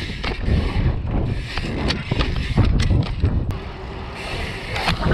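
Mountain bike riding down a rough trail: a steady low rumble of tyres and wind on the microphone, with frequent clicks and knocks from the bike rattling over bumps.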